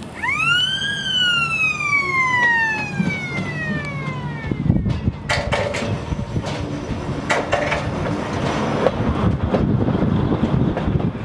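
A Volks Railway electric car sounds a siren-like warning that winds up quickly and then slides slowly down in pitch for about four seconds. The car then clatters and rattles past close by, its wheels knocking over the rail joints.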